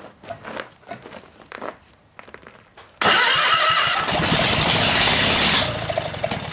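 16 hp Kohler engine of a Gravely 16G tractor, with no mufflers fitted, catching about three seconds in and running really loud for a couple of seconds, then firing unevenly as it dies out. The owner suspects a carburetor fuel-air mixture problem keeps it from running on.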